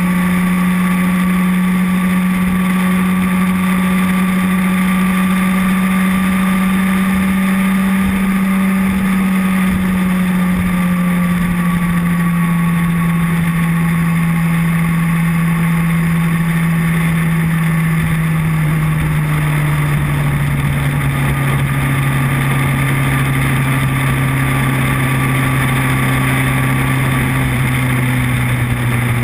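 Motorcycle engine running steadily at cruising speed, its note falling gradually in pitch about a third to two-thirds of the way through as the bike slows. Wind and road noise rush steadily under it.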